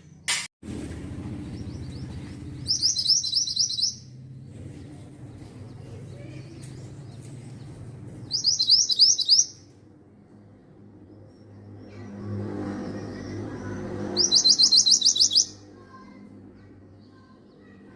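Mantenan songbird singing three short bursts of rapid, repeated high notes. Each burst lasts a little over a second and they come about five to six seconds apart, over a low background rumble.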